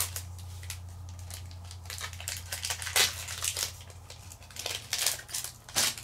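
Foil wrapper of a Japanese Pokémon card booster pack crinkling and tearing as it is opened by hand: an irregular run of sharp crackles, loudest about three seconds in and again just before the end.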